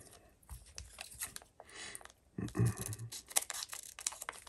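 A sealed plastic photocard packet being torn open and handled: crinkling plastic with a run of small clicks and crackles.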